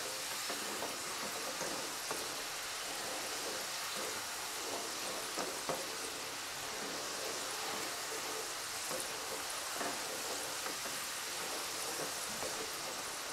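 Potato sticks deep-frying in hot oil, a steady, even sizzle, with a couple of faint clicks about halfway through.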